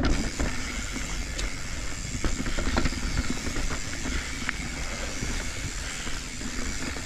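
Mountain bike rolling along a rooty dirt trail: a steady hiss of tyre and wind noise with scattered knocks and rattles as the wheels go over roots.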